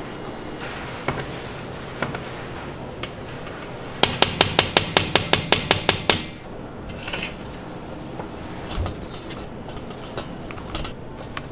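Spatula working thick cream in a large stainless steel mixing bowl, with scattered clicks against the bowl. About four seconds in comes a quick run of about a dozen sharp taps on the bowl, around six a second.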